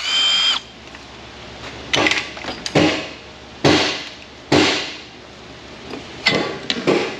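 Cordless drill-driver whining as it spins out a valve cover bolt on a Cadillac Northstar V8, cutting off about half a second in. Then four sharp knocks about a second apart and a few lighter clicks near the end.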